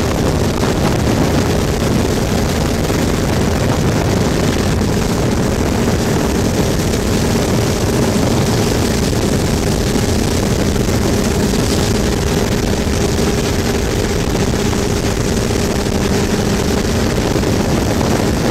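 Motorboat engine running steadily at the high speed needed to tow a barefoot skier, under a constant rush of wind and water spray.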